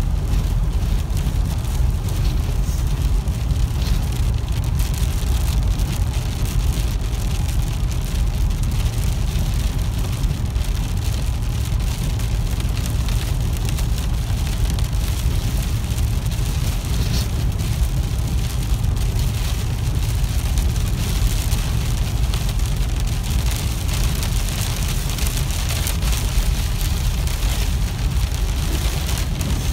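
Car cabin noise while driving a wet highway in blowing rain: a steady low road and engine rumble with the hiss and patter of rain hitting the windshield and body.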